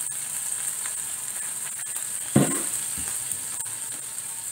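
Oil and lime juice sizzling in a hot nonstick frying pan: a steady hiss with scattered small pops. A single low thump about halfway through.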